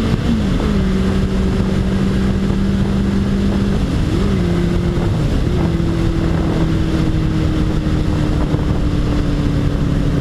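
Motorcycle engine running under way, with wind rushing over a helmet-mounted camera's microphone. The engine's steady note drops to a lower pitch shortly after the start and again about four to five seconds in, then drifts slowly lower.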